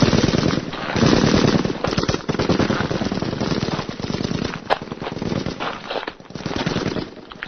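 Battle sound effect: continuous rapid machine-gun fire mixed with scattered gunshots. A single sharp crack stands out about four and a half seconds in, and the firing thins out slightly near the end.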